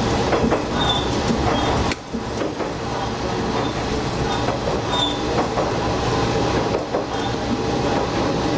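Diesel railcar running along a single-track line, heard from the cab: a steady engine and running drone, with wheel knocks over the rail joints and a few brief high squeaks.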